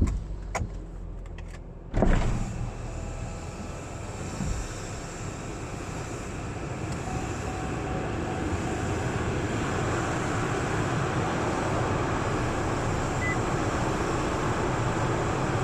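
A car: a few clicks, then a sudden loud thump about two seconds in, followed by steady engine and road noise that builds over the next several seconds and then holds.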